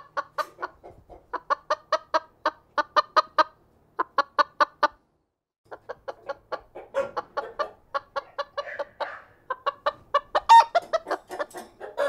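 A chicken clucking in quick runs of short, evenly spaced notes, with a pause of about a second near the middle.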